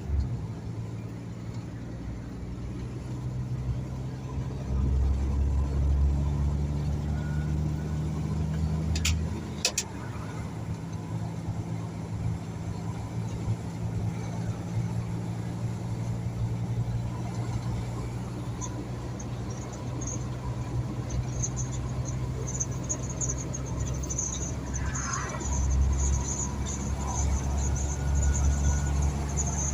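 Diesel engine of a Mercedes-Benz ready-mix concrete truck running as the truck drives, a steady low hum that grows louder twice as it pulls harder. There are a few sharp clicks about a third of the way in.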